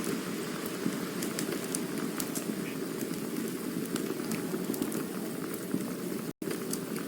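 Campfire burning: a steady low rushing hiss with frequent small, sharp crackles and pops. The sound cuts out for an instant about six seconds in.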